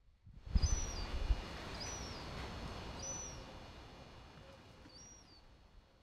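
Gull chick giving four thin, high peeps, each jumping up and then sliding down in pitch. Under them, a rush of noise with low thumps in the first second slowly fades away.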